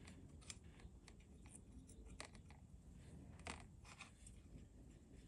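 Near silence with scattered faint clicks and light scrapes: small metal-tipped hand tools touching a die-cast metal car body and working paint stripper gel over it.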